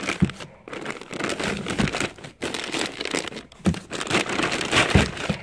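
Clear plastic bags crinkling as plastic-wrapped coilovers are handled in a cardboard box, with a few dull knocks.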